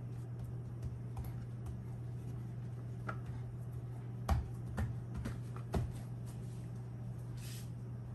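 A few light clicks and knocks from hands and tongs handling plastic topping bowls on a granite countertop, the sharpest four between about three and six seconds in, over a steady low hum.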